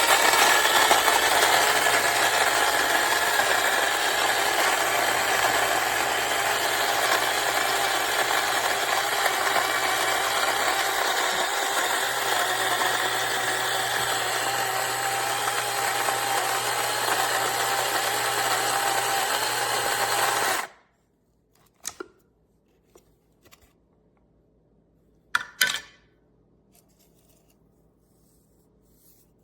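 Electric burr coffee grinder's motor running steadily, grinding, for about twenty seconds, then cutting off suddenly. A couple of short knocks follow.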